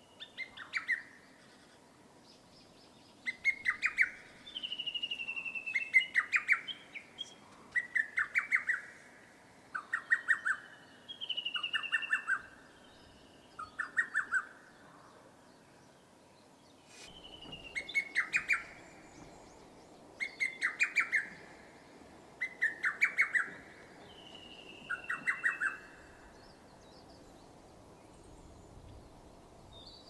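Lesser cuckoo singing its loud, sharp phrases of rapid staccato notes over and over, several with a falling whistled note, about every two seconds. It pauses briefly halfway through and falls silent near the end.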